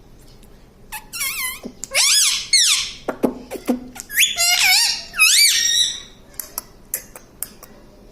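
Pet parrot giving a string of shrill, squeaky calls that waver up and down in pitch, from about a second in until about six seconds, followed by a few short clicks.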